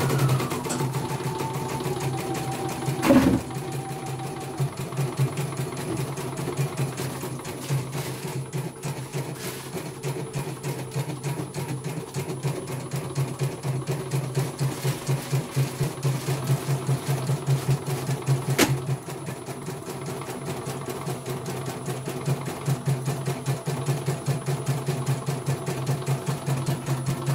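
CNY E900 computerized embroidery machine stitching lettering, a rapid, even run of needle strokes with the hoop stepping under it, on a test run after being repaired from a total failure. A sharp click sounds about three seconds in, and a fainter one about two-thirds of the way through.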